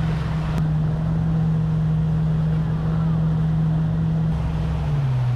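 Mercury outboard motor running at speed, a steady engine hum over the rush of the churning wake. Near the end the engine note slides lower.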